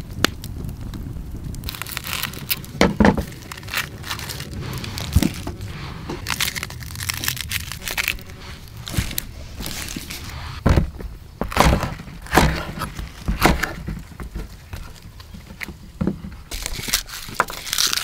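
Hands preparing food on a wooden cutting board: irregular sharp knocks and clicks of a knife against the board, with the crackle of garlic cloves being cracked and their papery skins peeled off.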